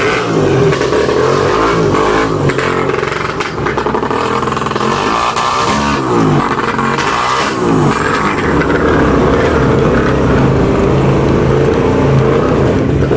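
Motorcycle engine running as the bike rides off, the engine note rising and falling several times in the middle as it accelerates, then steadier.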